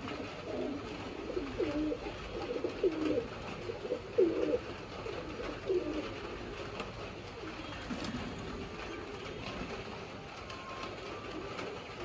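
Berlin Short-faced Tumbler pigeon cooing: a quick run of low, bending coos for about the first six seconds.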